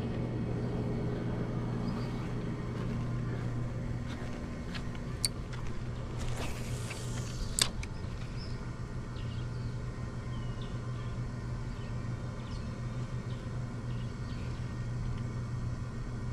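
A steady low engine hum runs throughout. About six to seven and a half seconds in there is a brief rush of noise with a couple of sharp clicks.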